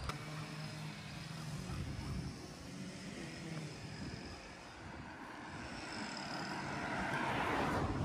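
A car driving past on the road. Its noise swells to loudest near the end and then falls away.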